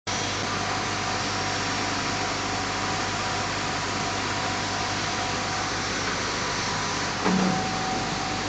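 Condenser cooling water gushing out of an opened waterbox during a backwash, a steady rush of water with a steady machinery hum beneath it. A short low sound stands out about seven seconds in.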